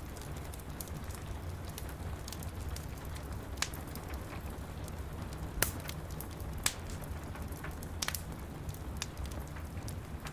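Wood fire crackling, with scattered sharp pops (a few louder ones through the middle) over steady rain and a low rumble.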